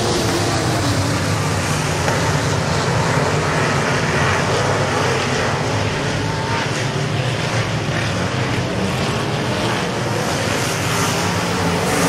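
A pack of dirt-track modified race cars lapping together, their engines running hard in a loud, steady mixed drone.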